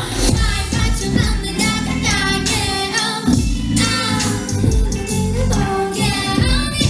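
A woman singing a pop song live over instrumental accompaniment with a steady low beat.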